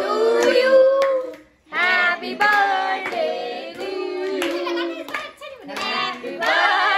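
Several voices singing a birthday song together, with hand claps. The singing breaks briefly about a second and a half in, then carries on.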